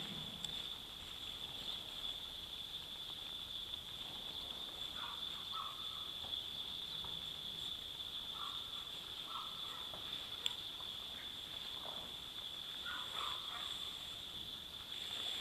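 Outdoor ambience: a steady high insect trill, with a few short bird chirps in the middle and a single sharp click about ten seconds in.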